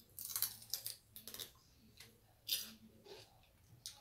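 Close-up crunching of a raw celery stalk being bitten and chewed: a string of sharp, crisp crackles, densest in the first second and a half, then a few single loud crunches.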